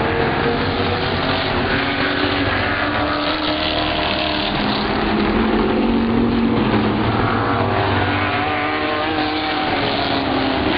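Several street stock race cars running at racing speed, their overlapping engine notes rising and falling as the cars pass.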